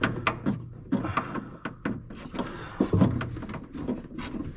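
Scattered light clicks, knocks and rubbing of hand work: small screws and a screwdriver being handled and fitted by feel in a cramped car interior.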